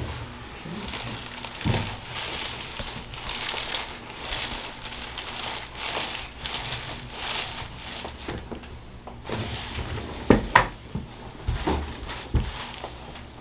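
Rustling and crinkling as a patient shifts and is repositioned on a chiropractic table. About ten seconds in come several short, sharp clicks or pops.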